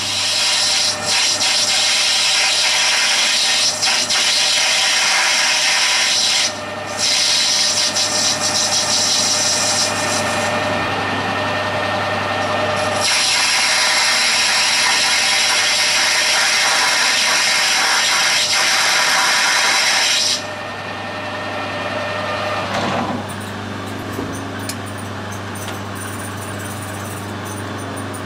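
Metal lathe turning a small valve, the cutting tool taking a long cut with a loud harsh hiss over the steady hum of the lathe motor. The cut breaks off briefly about six seconds in and stops about twenty seconds in, leaving the lathe running more quietly.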